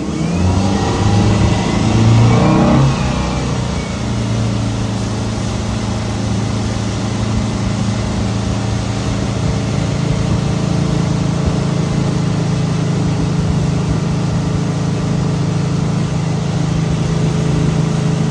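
Inboard Indmar engine of a Tigé 24RZX wakesurf boat revving up as the boat accelerates over the first few seconds, then running steadily at surf speed under a steady rushing hiss.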